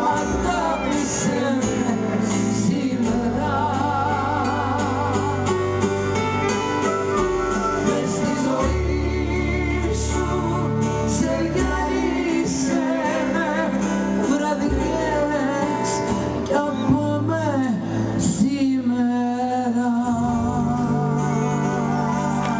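A woman singing live into a microphone with vibrato, backed by a small band with a double bass. The melody ends on a long held note near the end.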